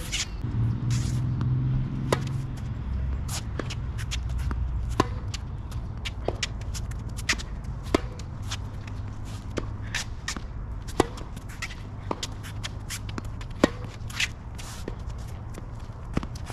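Tennis rally: racquets striking the ball and the ball bouncing on the court, a string of sharp pops roughly a second apart, with players' footsteps scuffing, over a steady low rumble.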